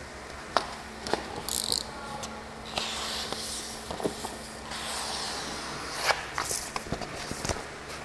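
Rustling and crinkling of a large sheet of vinyl wrap film being held and shifted against a car door, with scattered light clicks and knocks from handling.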